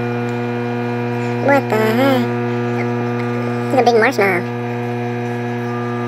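Microwave oven running with a steady electrical hum. A person's voice cuts in briefly twice, about one and a half and four seconds in.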